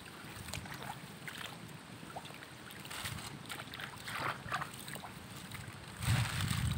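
Small splashes and sloshing in the shallow muddy water of a flooded rice paddy as someone works bent over among young rice plants, with scattered short splashes. A louder low rumble comes in near the end.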